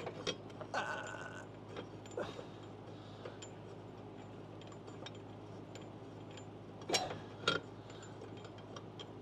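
Hand socket ratchet clicking as a riding lawnmower's blade bolt is turned in, with scattered small metal clinks and two louder knocks about seven seconds in.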